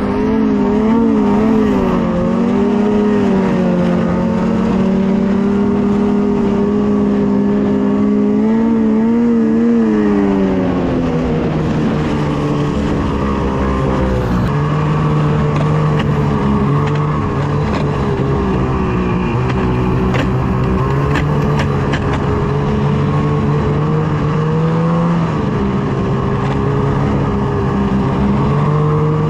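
Ski-Doo snowmobile engine running under way, its pitch wavering with the throttle and then dropping to a lower, steadier note about ten seconds in, lifting a little again near the end.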